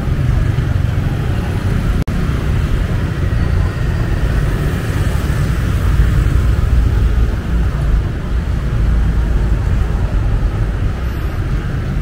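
Busy street ambience dominated by a steady low rumble of motor traffic, with a momentary dropout in the sound about two seconds in.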